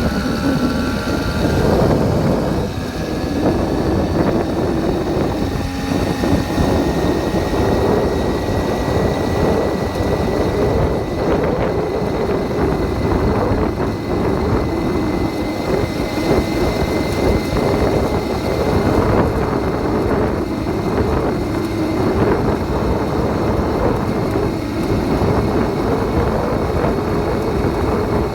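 Small 80cc bicycle engine picking up speed over the first couple of seconds, then running steadily at cruising speed, with wind buffeting the microphone.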